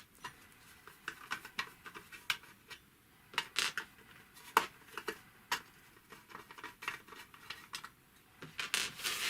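Scattered light clicks and small scrapes of screws being undone by hand from the cover of an industrial sewing machine, with a brief rustle near the end.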